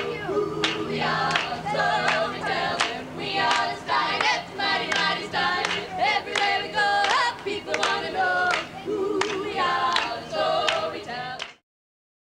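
Female a cappella vocal group singing in close harmony, with sharp clicks on the beat. The singing cuts off suddenly near the end.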